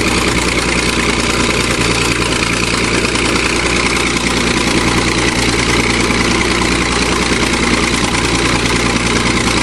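Bulldozer engine running steadily under load as the dozer climbs a steep hill.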